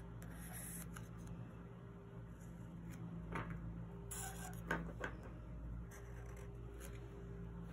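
Black felt-tip marker drawn over lines on paper: a few faint, short scratchy strokes about halfway through, over a steady low hum.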